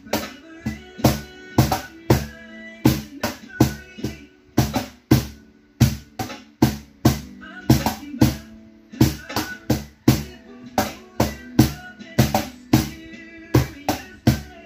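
Wooden cajon hand-played in a steady groove, deep bass strokes alternating with sharper slaps, about three to four strikes a second.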